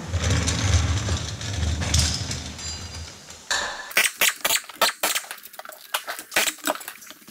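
Impact wrench running for about three seconds on the bolts of the engine's front cover, followed by a run of sharp, irregular metallic clicks and clanks as tools and parts are handled.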